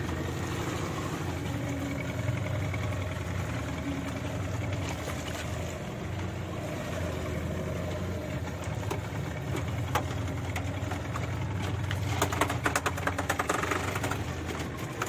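Boat engine running steadily with a low hum. About twelve seconds in, a burst of rapid clicking rises above it for a couple of seconds.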